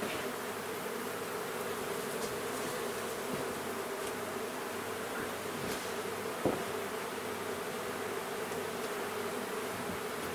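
Honeybees humming steadily around an opened hive as brood frames are lifted out, with a single sharp knock about six and a half seconds in.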